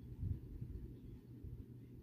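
Faint low rumble with soft irregular thumps, loudest about a quarter second in: handling noise from a handheld camera.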